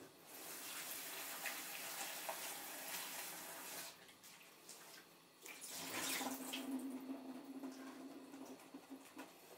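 Kitchen tap running as salad greens are washed in the sink, in two spells of about four seconds each with a short pause between; the second spell has a low steady note under the rush of water.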